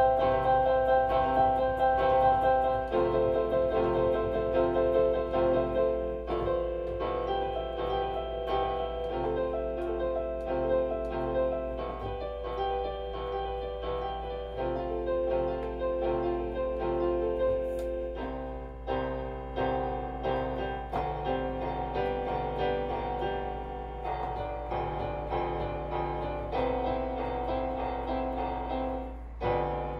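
Piano playing a slow, gentle piece, with held notes and chords changing every second or two.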